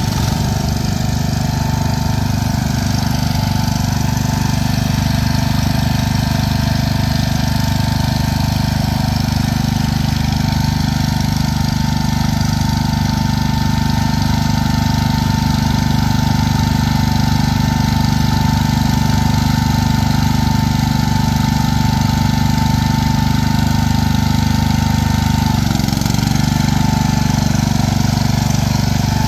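Small garden tractor engines running steadily in mud, with a thin, steady high whine over them. About 26 seconds in the whine stops and the engine note shifts.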